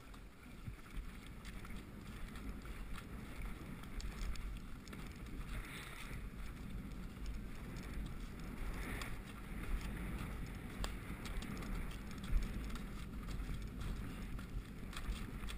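Wind rumbling on the microphone of a rider-worn camera as a horse moves along a soft, muddy track, with the muffled sound of its hooves in the mud; the noise grows louder over the first few seconds.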